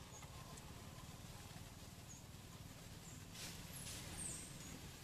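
Quiet outdoor ambience: a steady low rumble with a few short, very high chirps scattered through it, the last ones gliding down in pitch, and a brief rustle about three and a half seconds in.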